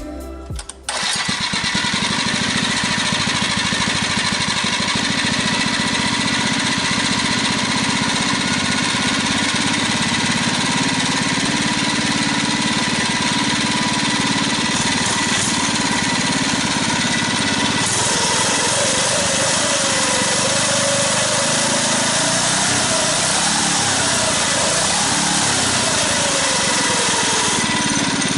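Mini bike's small engine running steadily, starting about a second in.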